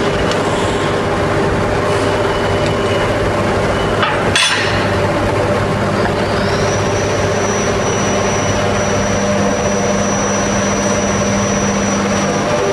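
Steady hum of shop machinery, with a high thin whine setting in about six seconds in. About four seconds in there is a single metal clink as a pry bar works the rotating half of a pump's mechanical seal off its shaft.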